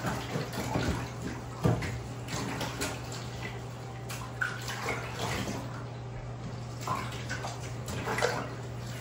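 A hand sloshing and scrubbing through a bathtub full of soapy water, with irregular small splashes, over a steady low hum.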